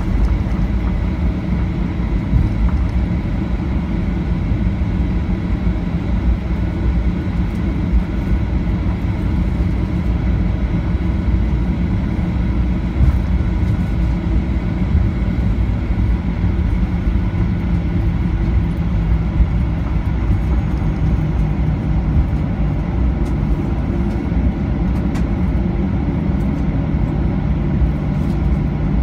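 Cabin noise of a Boeing 737-800 taxiing on the ground, its CFM56-7B turbofan engines at idle: a steady low rumble with a faint high whine, level and unchanging throughout.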